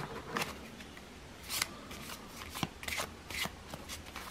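A deck of Petit Lenormand cards shuffled by hand, overhand style: a scattering of short, irregular soft slides and flicks as packets of cards drop against the deck.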